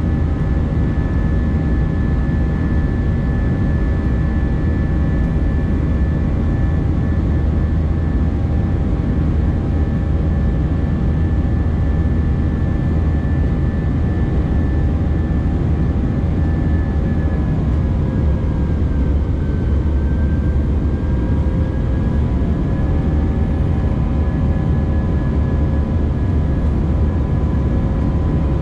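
Airbus A319 cabin during the climb after takeoff: a steady deep roar of engine and air noise with a steady engine whine above it. About two-thirds of the way through the whine dips slightly in pitch and settles at new tones.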